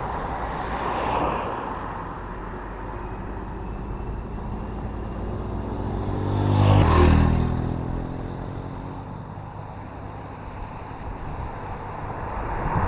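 Motorcycle riding on a road: a steady engine and road rumble. About seven seconds in, a louder vehicle engine sweeps past, swelling and then dropping in pitch.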